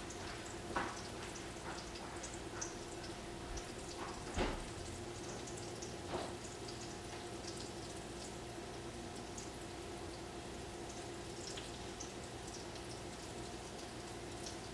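Mahi mahi fillets frying in a pan: a faint, steady sizzle with scattered small pops and crackles, a few of them louder about a second in and again around four and a half and six seconds.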